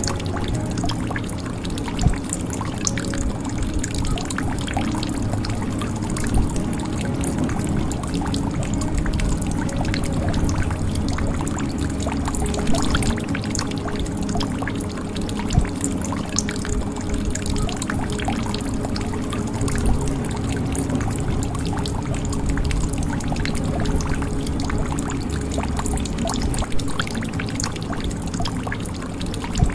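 Water dripping and trickling into a jug: a continuous patter of small drops over a low, full sound of water, with a single louder drop every few seconds.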